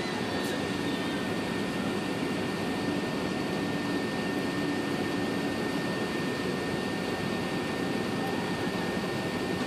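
Steady cabin noise inside an Airbus A380 on the ground before take-off: jet engines and air-conditioning running as an even rush, with a faint steady high whine over it.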